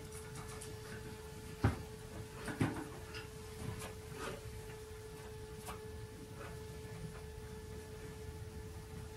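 Oil painting in progress: light taps and knocks of a brush working a canvas on a wooden easel. The two loudest knocks fall nearly two seconds in and again about a second later, over a faint steady hum.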